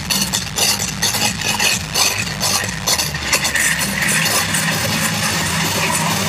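Electronic dance music played loud through a club sound system, heard through a phone microphone. A beat of about two hits a second drops out about halfway, leaving a held synth tone that slides lower.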